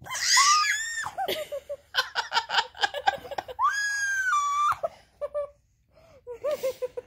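Baby squealing in high-pitched shrieks, with a quick run of giggling laughter and then one long held squeal a little past the middle.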